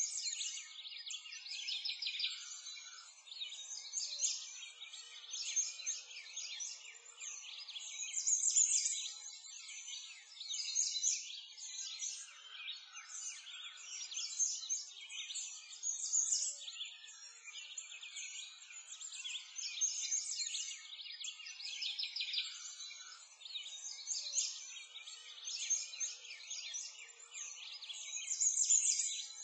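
A dense chorus of birds chirping and singing, a continuous outdoor birdsong ambience made up only of high, busy chirps that swell and fade every second or two.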